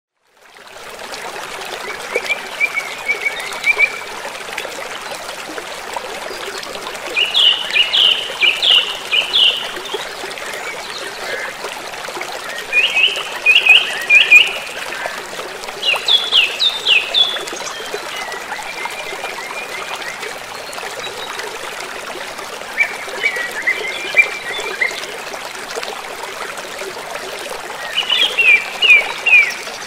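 Steady trickle of running water with a songbird singing short phrases of quick falling notes every few seconds.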